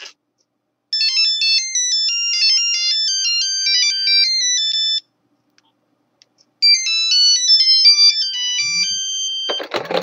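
Two mobile phone ringtones in turn, each a quick electronic melody of stepping notes with several sounding at once: the first for about four seconds, the second after a pause of about a second and a half, for about two and a half seconds. A short clatter comes near the end.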